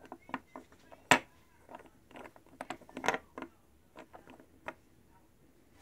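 Polycube puzzle pieces clicking and knocking against each other and the wooden tabletop as a piece is slid into place in a cube. The taps are irregular: the sharpest comes about a second in, and a run of them follows around three seconds in.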